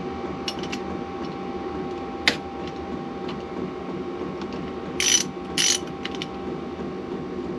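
Hand tools being worked on a motorcycle engine: a single sharp metallic click about two seconds in, then two short rasping bursts a little over half a second apart, over a steady workshop hum.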